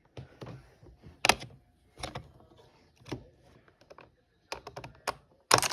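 Plastic keycaps being pressed back onto a computer keyboard: scattered sharp clicks at uneven intervals, with a quick run of clicks near the end and the loudest click at the very end.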